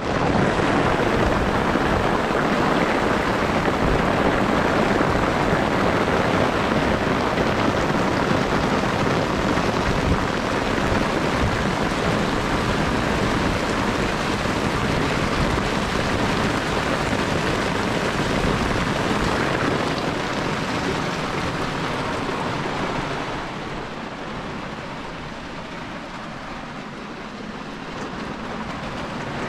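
Heavy rain pouring down on a sailboat and the water around it, a dense steady hiss. About three-quarters of the way through it becomes noticeably quieter.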